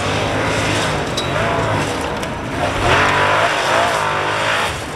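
Formula Offroad buggy engine revving hard as the buggy climbs a steep sand slope. The revs rise and fall repeatedly and are loudest from about three seconds in.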